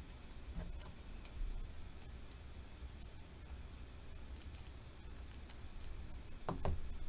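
Light, scattered clicks and taps of a trading card and a clear rigid plastic card holder being handled and fitted together, over a low steady hum.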